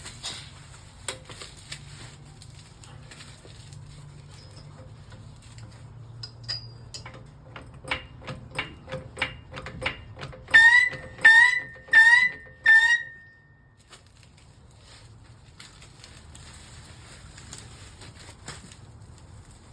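Hydraulic floor jack being pumped higher under the truck's front suspension to take the load off the sway bar link: a run of quick clicks, then four loud squeaks about two-thirds of a second apart that stop about 13 seconds in.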